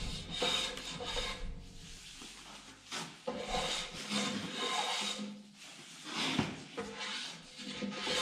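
Hand plane scraping along the edge of a wooden stair tread in a series of short, irregular strokes, breaking the sharp edges of the board.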